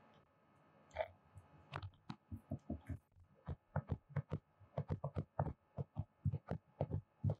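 Stylus tapping and scraping on a touchscreen while handwriting. A sharper click comes about a second in, then an uneven run of dull taps, several a second.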